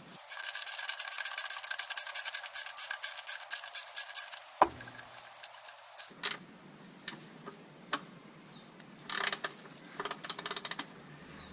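Socket ratchet clicking in quick, even runs as it turns the oil drain plug in, tightening it back into the oil pan. A fast run lasts about four seconds, then a sharp single click, scattered clicks, and two shorter runs near the end.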